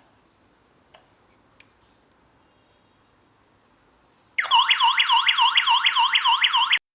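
Electronic siren of a home burglar alarm system going off, a loud fast warble sweeping up and down about four times a second. It starts suddenly a little over four seconds in and cuts off abruptly near the end: the armed system has been triggered. Two faint clicks come before it.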